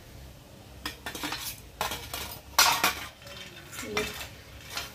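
Stainless steel slotted skimmer knocking and scraping against steel utensils while fried jantikalu are lifted from the oil and moved to a plate, in a string of short clatters, the loudest about two and a half seconds in.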